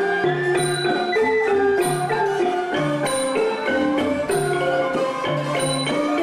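Traditional Khmer folk dance music: a quick melody of struck notes, as from a xylophone-like mallet instrument, over low drum beats, with a bright accent about every second and a quarter.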